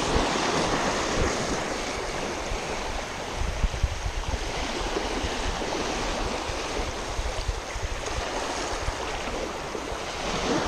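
Small waves washing up over sandy shallows, a steady wash of water, with some wind rumble on the microphone a few seconds in.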